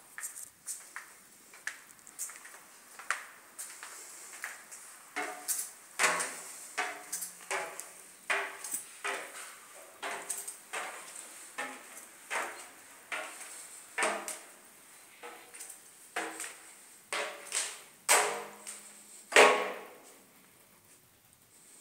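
Irregular knocks and clicks, about one or two a second, some with a short ringing or creaking tone, louder from about five seconds in and fading near the end: footsteps and knocks from someone walking through the rooms.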